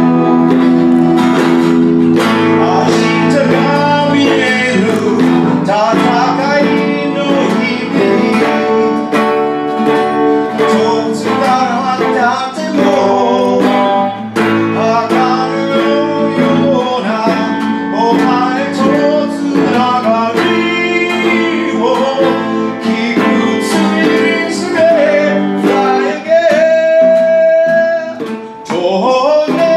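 Electric guitar and strummed acoustic guitar playing a fast Japanese rock song together, with a man singing the vocal line in Japanese.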